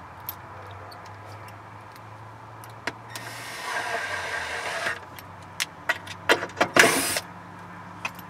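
Cordless drill driving a screw through a rubber pad into a board, running steadily for about a second and a half. Several sharp clicks follow, then a short, louder burst near the end.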